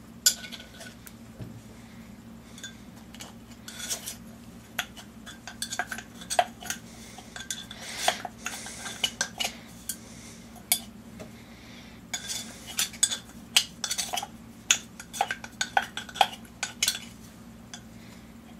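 Thin metal pick scraping and clicking irregularly against the inside of an old oil-furnace filter canister as the clogged, disintegrated felt filter element is prised out in chunks.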